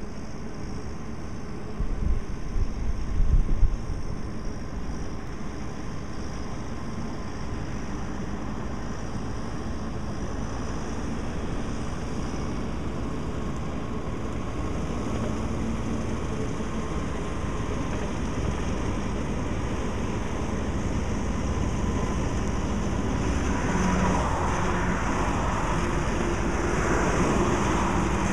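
Kubota tractor's diesel engine running with a batwing rotary mower cutting roadside grass, mixed with passing highway traffic; it grows gradually louder toward the end as the tractor comes closer. A few low bumps sound about two to four seconds in.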